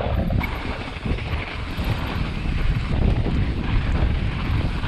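Wind buffeting the camera microphone, mixed with a mountain bike's tyres rolling fast through loose volcanic dirt.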